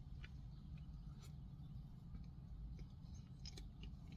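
Quiet eating sounds: a mouthful of soft cake pie taken off a plastic spoon and chewed, with a few small clicks and smacks scattered through, over a steady low hum.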